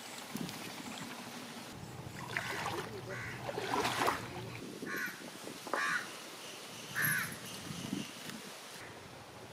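A bird calling outdoors: a few short separate calls, the three clearest about halfway through, over a steady background hiss and rustle.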